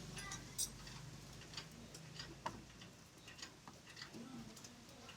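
Scattered light clicks and clinks of hand tools and metal parts being handled during suspension work, coming irregularly about one or two a second. A faint low hum fades out about two seconds in.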